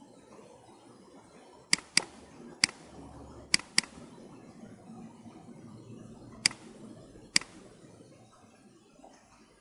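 Seven sharp, separate clicks from a computer's input devices over faint room noise, two of them close together about three and a half seconds in.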